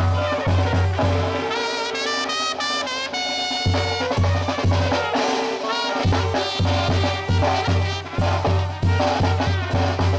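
Mexican banda music, instrumental: trumpets and trombones playing held notes and a melody over a repeated bass drum beat.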